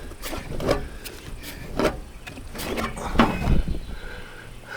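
Irregular knocks and scrapes as a seized, rusted RV air-conditioner fan is worked around by hand to free it, over a low rumble.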